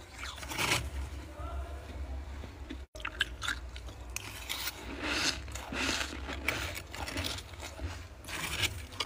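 Close-up crunching of freezer frost in irregular bursts, over a low steady hum, with a brief gap about three seconds in.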